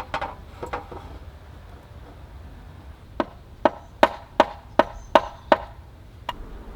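Sharp knocks, as of something being struck: a couple near the start, then a quick run of about seven strikes a little under half a second apart, and one more near the end.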